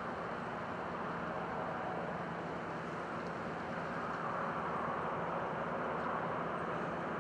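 Steady rumbling drone of a ship under way as it enters port, swelling slightly about four seconds in.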